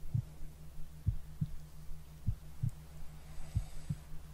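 Slow heartbeat: paired lub-dub thumps repeating a little more than once a second, over a steady low hum.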